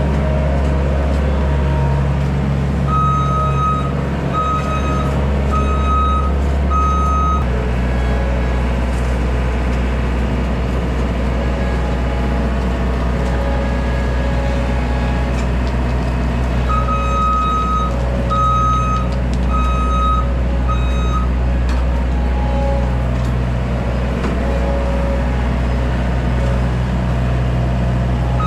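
Small skid steer's diesel engine running steadily under load, its note shifting about a quarter of the way in. Twice its backup alarm beeps about once a second, four times each, as the machine reverses.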